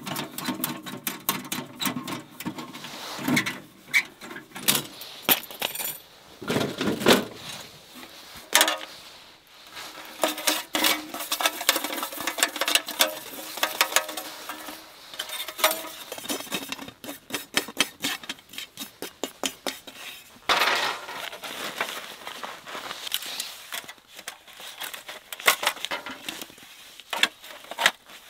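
Thin sheet-metal panels of a packable camp wood stove being taken apart and stacked into their carry bag: a steady run of metal clinks, clanks and scraping as the plates knock and slide against each other.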